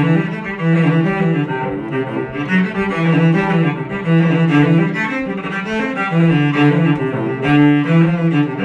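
Forte3D 3D-printed carbon fiber cello played solo with the bow, a quick-moving melody of short notes in the instrument's low-to-middle range.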